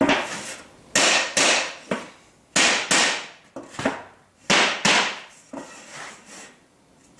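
Plasterboard sheet being knocked in against its dabs of adhesive to push the bottom of the board further in. Three pairs of loud knocks, each pair about a second and a half after the last, with fainter knocks near the end.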